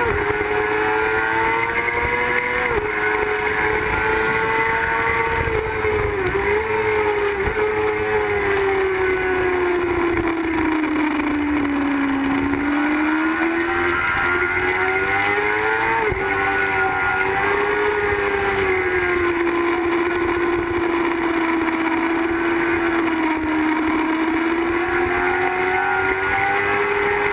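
Sport motorcycle engine running hard at speed, its pitch falling and rising with the throttle, with brief dips near three and six seconds in and a sudden jump in pitch about sixteen seconds in. Steady wind rush over the bike-mounted microphone lies under it.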